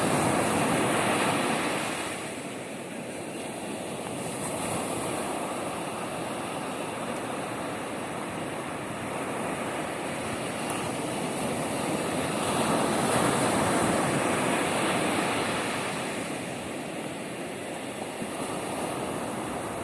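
Continuous rushing noise, like water or wind outdoors, that swells louder near the start and again about two-thirds of the way through.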